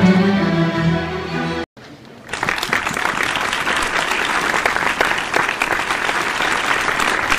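A string orchestra of violins and cellos holds its closing notes, which cut off suddenly under two seconds in. After a short gap, the audience claps steadily.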